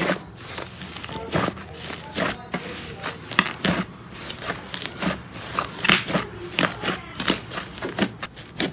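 Hands squeezing and kneading a large mass of fluffy slime, making an irregular run of squishes and small clicking pops, several a second.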